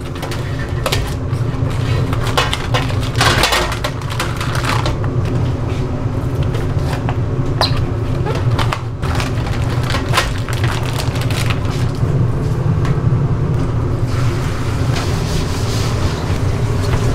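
Cooking and utensil clatter at a street-food stall: scattered knocks and clicks over a steady low hum, with a hiss coming up near the end.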